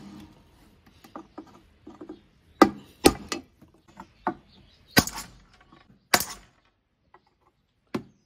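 A screwdriver prying at the metal handle bracket of an old iron wok: about half a dozen sharp metallic clanks, with quieter scraping and knocking between them.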